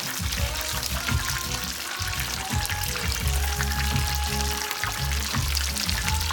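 Egg rolls deep-frying in hot oil, a steady dense crackling sizzle of bubbling oil, with music playing underneath.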